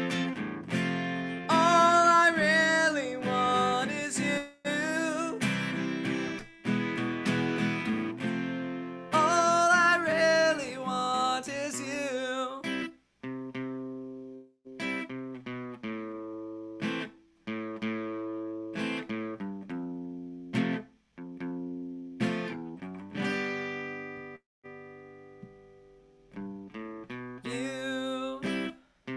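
A man singing over a strummed acoustic guitar; the voice drops out after about twelve seconds, leaving the guitar playing chords alone with short pauses, and comes back near the end.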